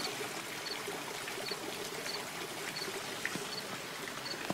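Fountain water splashing steadily into its stone basin, with a faint high chirp recurring about once a second.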